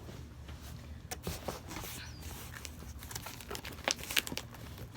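Handling of a cardboard shipping package: crinkling and rustling with scattered small taps and clicks, the sharpest about four seconds in.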